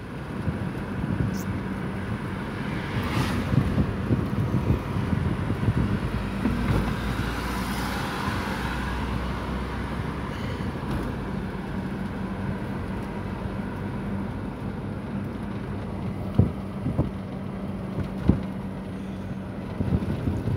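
Road noise heard from inside a moving car: a steady rumble of tyres and engine with a low hum, swelling for a few seconds about a third of the way in, with two short knocks near the end.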